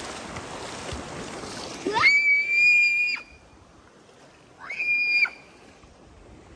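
Rushing, splashing water for about two seconds, then two shrill, high-pitched squeals. Each rises sharply and then holds one steady high pitch: the first lasts about a second, the second is shorter and comes about a second and a half later.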